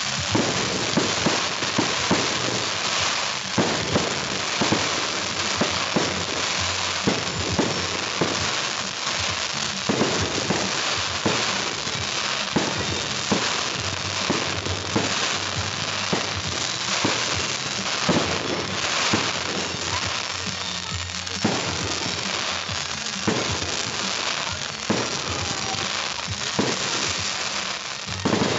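Fireworks display: rising comets and crackling shells going off, a dense crackling hiss broken by sharp bangs every second or so.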